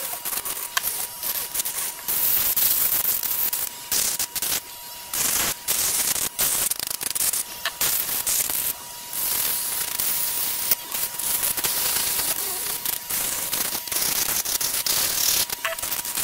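Handheld rotary tool, a Dremel-like grinder, running with a steady whine while its bit grinds spray paint off small plastic puzzle-cube pieces. The rasping grows and fades as the bit is pressed onto the piece and eased off.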